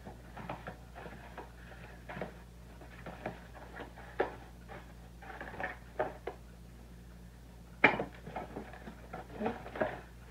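Small cardboard boxes being handled and opened by hand: scattered rustles, scrapes and taps of the cardboard, with one sharp knock about eight seconds in, over a steady low hum.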